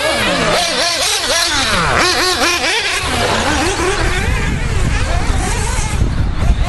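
Several radio-controlled off-road cars racing, their small motors revving up and down quickly with overlapping high-pitched whines. About halfway through the revving thins out and a low rumble takes over.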